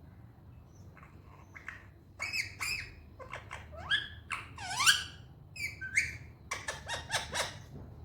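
Indian ringneck parrot squawking and calling: a string of short, high, pitched calls with quick swoops up and down in pitch, the loudest a swooping call about halfway through, then a fast run of short sharp squawks near the end.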